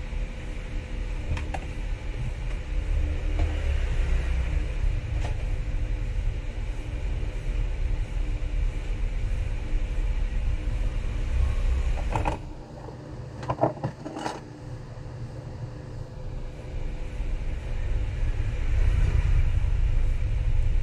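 Steady low background rumble with a faint constant hum. It falls away for a few seconds just past the middle, where a few short clicks sound, then comes back.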